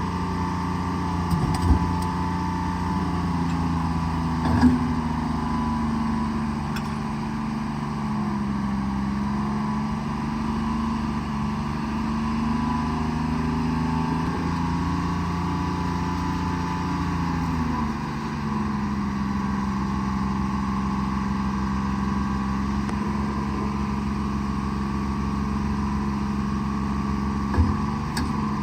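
Diesel engine of a forestry forwarder running steadily, its pitch dipping and rising slightly now and then as the load changes. There are a few sharp knocks: two in the first five seconds and one near the end.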